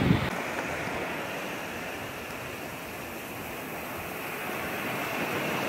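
Waves washing up a sandy beach: a steady rush of surf. There is a brief low rumble of wind on the microphone at the very start.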